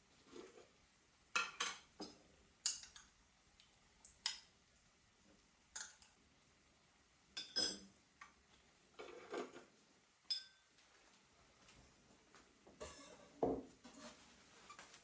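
Dishes and cutlery being handled: a scattering of short clinks and knocks, a few of them ringing briefly like china or glass being set down.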